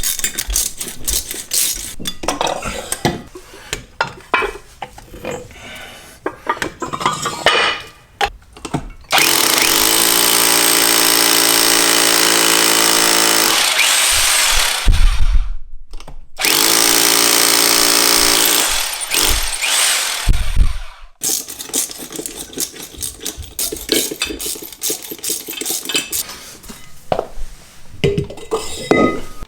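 Hammer drill with an SDS-plus carbide-tipped masonry bit boring into concrete in two runs of about five seconds each, a steady pitched hum, with a thump between them. Before and after the runs come irregular knocks and clatter of handling.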